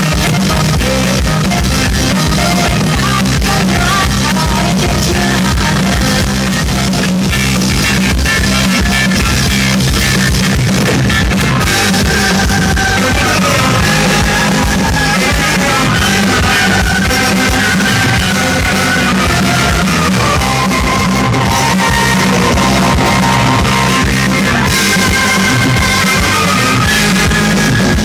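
A rock band playing live and loud: a woman sings near the start, then a tenor saxophone plays a melody of long held notes over the drums, bass and guitar.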